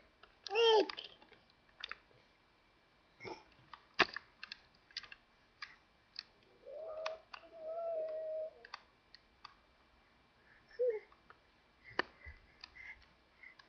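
Baby making a few short pitched vocal sounds, one a held tone of a second or two, among scattered sharp clicks and taps close to the microphone from handling the webcam.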